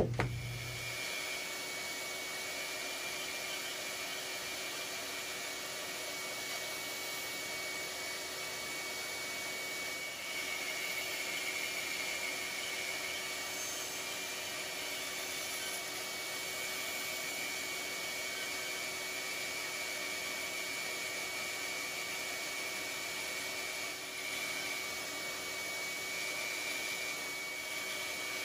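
Bandsaw running steadily, its narrow blade cutting a heart shape out of a small block of hard wood: an even machine whir with a thin high whine, swelling slightly twice as the blade works through the cut.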